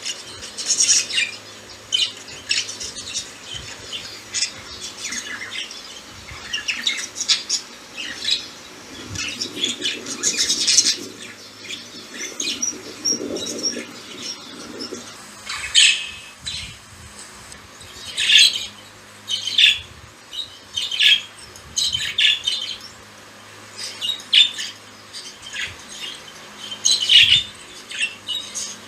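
Pet budgies (budgerigars) chirping and chattering in their cage: a steady run of short, sharp, high chirps and squawks, several every second.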